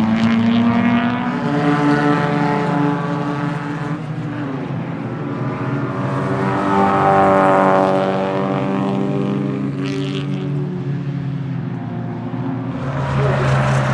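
Lada 2101 race car's 1.6-litre four-cylinder engine running hard on track, its note rising and falling with the revs. It is loudest about seven seconds in, and there is a brief hiss near ten seconds.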